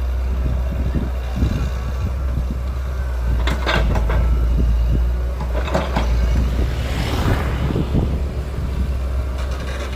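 Diesel engine of a hydraulic excavator running steadily under load, with a few short scraping and clattering noises from digging and loading soil, the longest about seven seconds in.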